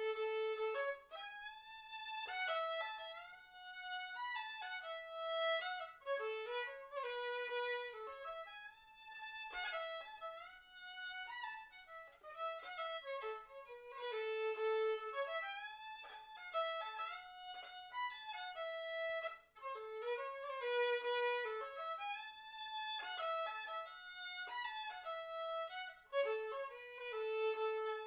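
Solo violin played fiddle-style, one bowed melody line of a Celtic dance tune, in quick steps of short notes with brief breaks between phrases.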